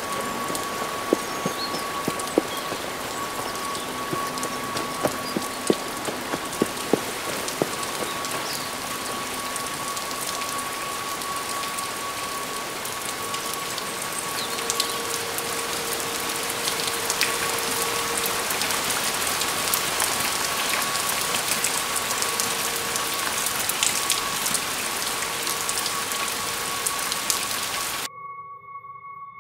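Steady rain falling through woodland, with heavy single drops striking close by during the first several seconds, over a steady high held tone from the score. About a second before the end the rain cuts off suddenly and only the quieter drone music remains.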